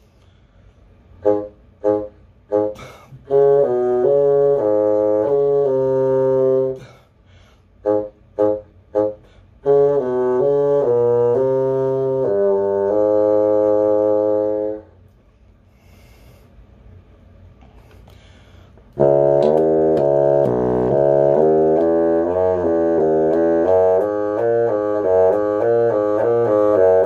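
Solo bassoon playing: a few short detached notes, then held, connected phrases, a rest of about four seconds, and a fast run of notes in the last third.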